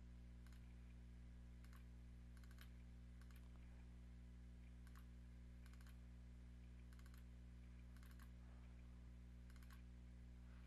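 Near silence: a steady low electrical hum with scattered faint computer mouse clicks.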